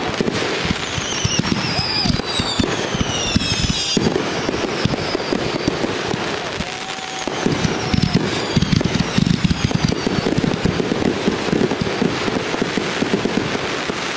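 A dense barrage of fireworks: aerial shells bursting and crackling without pause, with several high whistles falling in pitch over the first few seconds.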